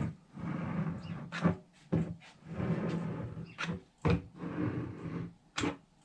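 Cordless hot glue gun knocking down onto a plywood drawer edge and scraping along it while laying glue beads: about three short drags, each under a second, with sharp knocks between them.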